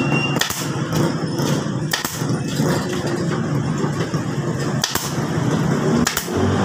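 Pneumatic upholstery staple gun firing staples into a motorcycle seat base as the vinyl cover is fastened: several sharp shots at uneven intervals.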